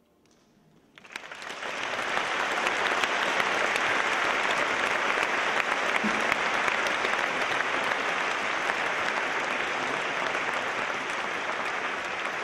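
Concert audience applauding, breaking out about a second in and holding steady.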